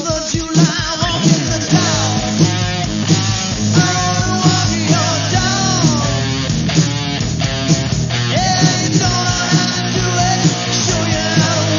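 Rock band playing with a steady drum beat, bass and electric guitar, the guitar lines bending in pitch.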